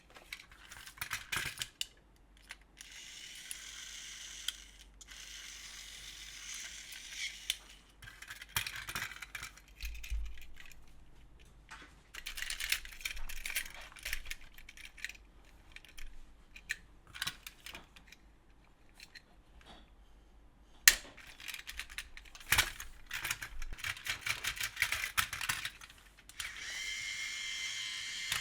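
Plastic toy train set clicking and clattering, with stretches of a few seconds of high whirring from small battery-driven toy motors and a faint steady whine near the end.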